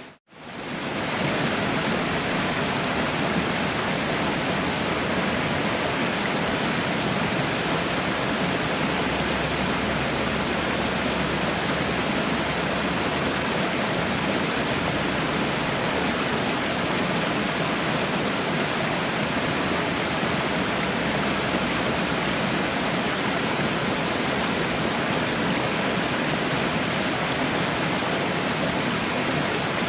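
Waterfall rushing in a steady, even roar of falling water. The sound cuts out for a split second right at the start.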